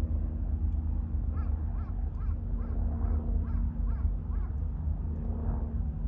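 A bird calls a quick run of about eight harsh, evenly spaced notes, roughly two or three a second, over a steady low rumble and hum.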